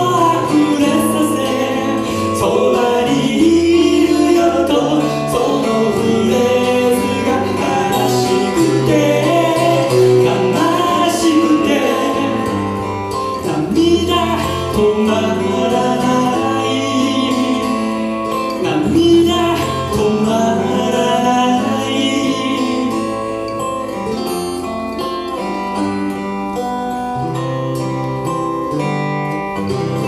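A singer performing a song with two acoustic guitars, heard live in a small room. The voice seems to drop out in the last several seconds, leaving the guitars playing on.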